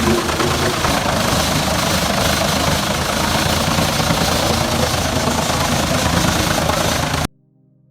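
New Holland tractor engine running under load, driving a wood chipper, with a dense, steady grinding hiss over a low engine rumble. It cuts off abruptly near the end.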